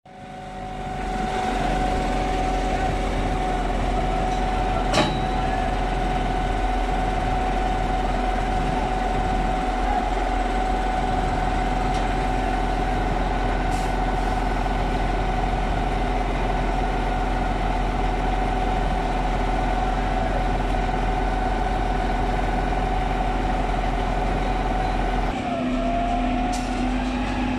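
Putzmeister M 38-4 truck-mounted concrete boom pump running steadily, its engine and drive giving a constant drone with a steady whine. Near the end the whine briefly dips in pitch and climbs back.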